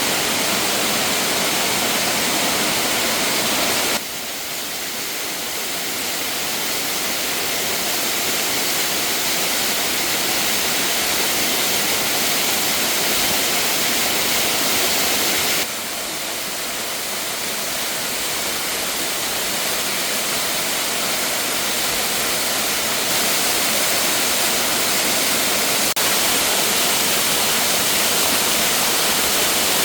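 Steady rushing noise of water. It drops abruptly about four seconds in and again about halfway through, each time building gradually back up.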